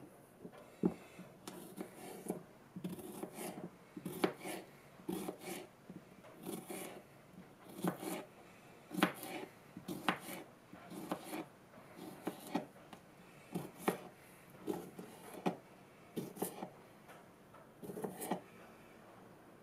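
Folding pocket knife slicing cucumbers into rounds on a thin plastic cutting board: a steady run of short cutting clicks, a little under two a second.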